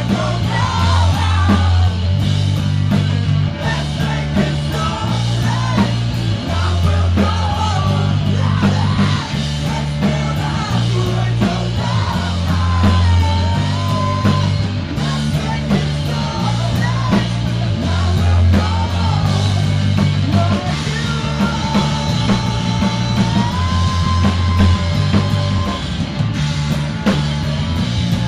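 Rock band playing loud and live: distorted electric guitar, a heavy bass riff repeating in a steady pattern, and a driving drum kit.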